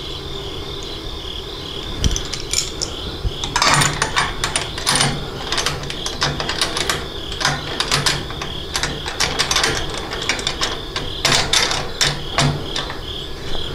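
Irregular metallic clicking and scraping of the head temperature gauge fitting being screwed and tightened by hand onto the top of a stainless steel still column. A steady pulsing high chirp runs underneath throughout.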